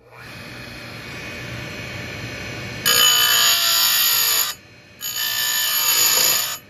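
Oregon bench chain grinder's motor switched on and running up to speed, then its grinding wheel is driven hard into a saw chain's cutter tooth twice, each pass a loud grinding rasp of about a second and a half. The tooth is being fed in too fast, the impatient way that overheats it.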